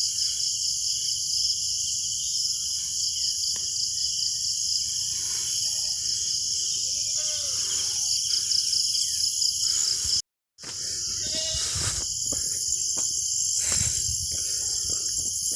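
Loud, steady chorus of insects, a dense high-pitched buzzing trill with a fine pulse, with a few faint scattered lower sounds beneath it. It breaks off completely for a moment about ten seconds in, then resumes.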